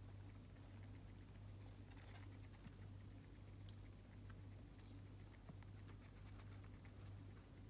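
Faint, irregular tiny clicks of a Roborovski hamster nibbling a broccoli stalk, over a steady low hum.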